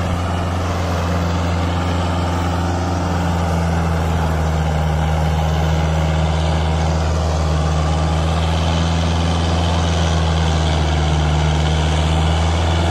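Kubota MU4501 4WD tractor's four-cylinder diesel engine running steadily under heavy load in third low gear, powering an 8-foot rotavator through the PTO while also dragging a disc harrow. The engine holds one constant, deep hum throughout.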